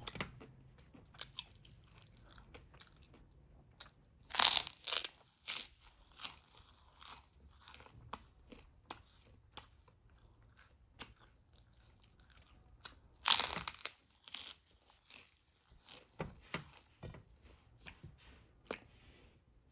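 Close-up eating noises of a person chewing and biting a meal of rice, egg and chicken drumsticks: a run of short wet mouth clicks, with louder clusters of bites about four seconds in and again around thirteen seconds.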